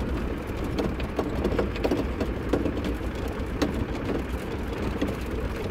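Land Rover Defender 90 driving down a rough gravel track, heard from inside the vehicle: a steady low engine and road rumble with stones crackling and popping under the tyres.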